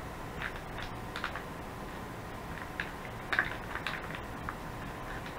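MRE raisin pouch being torn open and handled: scattered short crinkles and crackles of the stiff laminated packaging, busiest a little past three seconds in.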